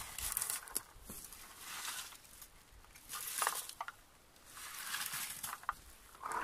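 Red plastic berry picker (blueberry rake) combing through low blueberry shrubs. It makes about four brief rustling, scraping strokes through leaves and twigs, with a few light clicks partway through.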